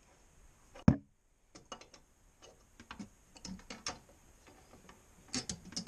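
Ratchet wrench clicking in short irregular strokes, a few a second, as the nut is backed off the toilet's closet bolt. A sharp knock about a second in is the loudest sound.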